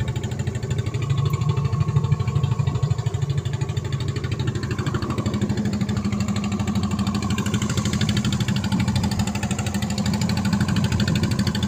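A small engine on the boat running steadily with a fast, even beat. It drives the surface air compressor that feeds the hookah divers' breathing hoses while they are down.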